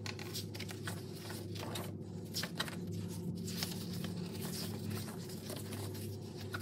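Paper pages of a spiral-bound planner being turned and leafed through by hand: a string of irregular soft rustles and flicks, over a steady low hum.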